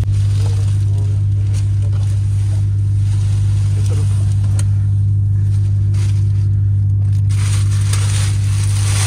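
Clear protective plastic film being pulled off new truck sleeper-cab fittings and crumpled, a crinkling rustle that gets much louder in the last two seconds. Underneath is a loud, steady low drone.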